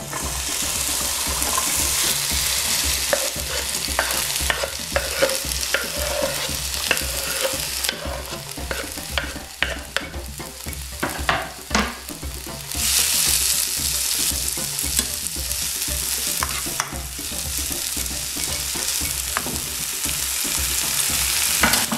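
Diced red pepper and onion sizzling as they fry in a little vegetable oil in a non-stick frying pan. A utensil and the chopping board scrape and tap against the pan, the taps bunched in the middle, while the vegetables are pushed in and stirred.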